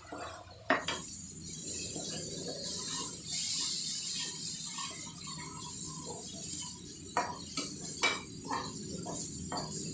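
Spiced onion-tomato masala sizzling as it fries in a metal kadai, while a metal spatula stirs it, scraping and clinking against the pan several times near the end.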